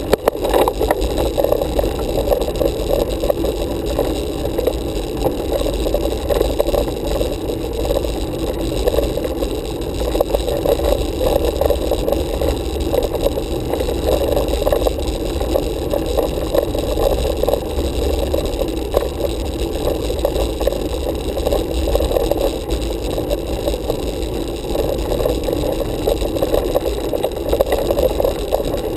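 Road bicycle rolling on asphalt: a steady, muffled rumble of tyre and road vibration with light rattles.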